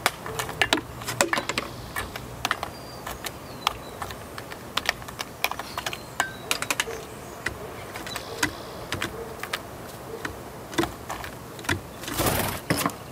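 Steller's jay picking through a steel bowl of peanuts in the shell, its beak knocking and shuffling the shells against each other and the bowl in an irregular run of sharp clicks and rattles. A brief rush of noise comes near the end.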